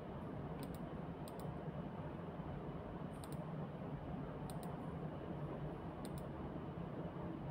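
Computer mouse clicks, five spaced out, some as quick double clicks, over a steady low hum of room noise.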